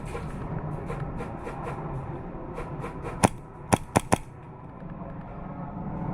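Four sharp airsoft gun shots, one and then three in quick succession, over a steady background hiss, with faint fainter clicks earlier on.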